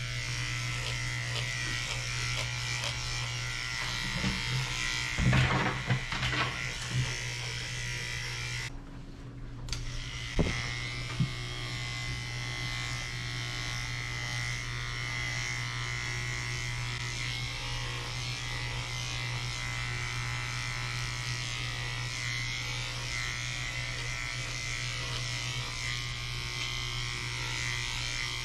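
Electric dog-grooming clippers running steadily as they shave through a dog's thick curly coat, with a constant buzzing hum. A few knocks and rustles come around five to seven seconds in and again near ten seconds.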